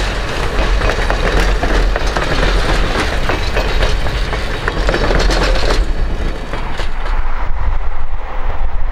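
Passenger coaches of a steam excursion train rolling past close by, their wheels clicking and clattering over the rail joints. About six seconds in, the clatter fades into a duller low rumble.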